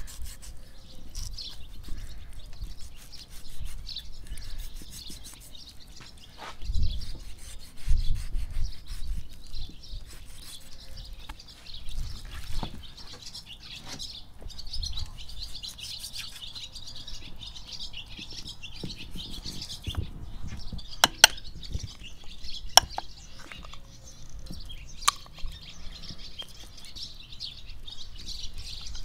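A knife cutting through raw beef and between the rib bones on a wooden board: scraping strokes and dull knocks, with a few sharp clicks of the blade on bone or board in the latter half. Birds chirp throughout the background.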